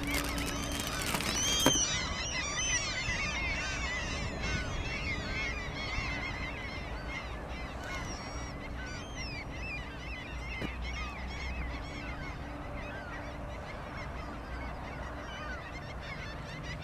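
A large flock of birds calling continuously, many short rising-and-falling calls overlapping one another, with a single sharp click about two seconds in.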